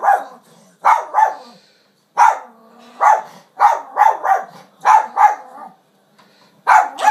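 Yorkshire terrier barking repeatedly: about a dozen short, sharp barks, often in quick pairs, with brief pauses between volleys.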